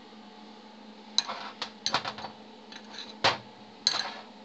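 Metal parts being handled on a workbench: a run of irregular sharp metallic clinks and knocks, the loudest about three seconds in, over a low steady hum.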